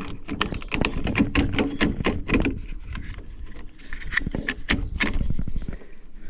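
Rapid, irregular clicks, knocks and rattles of a new door handle being pressed and fitted into a VW T4 van's sliding or cab door, over a low rumble that drops away near the end.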